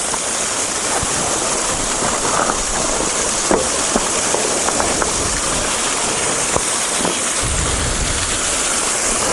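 Waterfall rushing in a steady, full roar of falling water, running strong with heavy flow.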